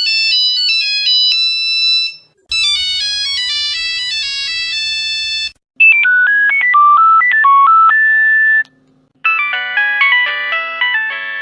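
A series of Nokia mobile phone ringtones, each a short electronic melody of quick stepped notes played for about three seconds. The first is cut off about two seconds in, and new ones start after brief gaps, about two and a half, six and nine seconds in.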